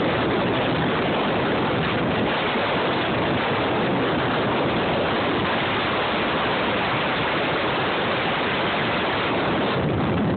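Hurricane wind blowing hard across the phone's microphone with surf mixed in, a steady loud rush of noise that never lets up.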